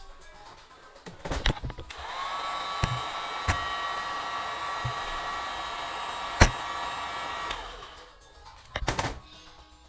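Small electric motor whirring steadily for about five seconds, rising briefly in pitch as it starts and winding down at the end, with a few clicks before, during and after.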